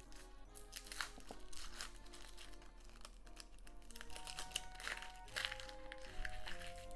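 Dry, papery onion skin crackling and crinkling as it is peeled off by hand, in many short irregular crackles, over light background music.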